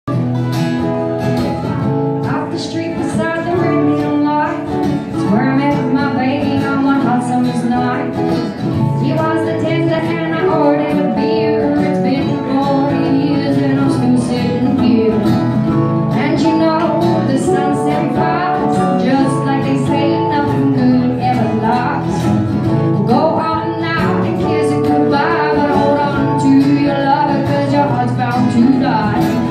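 Live acoustic band music: strummed acoustic guitars and a plucked small-bodied string instrument, with a woman singing lead.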